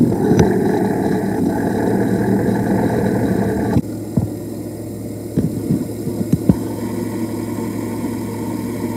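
An idling engine's belt-drive tensioner idler pulley, heard through a contact listening probe: a steady, rough rumbling hum from the pulley that is suspected of having a bad bearing. A little under four seconds in, the sound drops abruptly, and a few sharp knocks follow as the probe is shifted along the engine.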